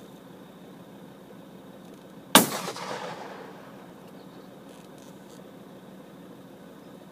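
A single 12-gauge shotgun shot, sharp and very loud, about two seconds in, followed by a rolling echo that dies away over about a second and a half.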